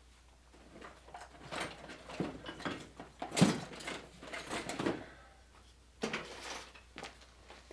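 Wooden parts of a paper towel holder being handled and fitted together during glue-up: irregular rubbing and knocking, with one sharper knock about three and a half seconds in.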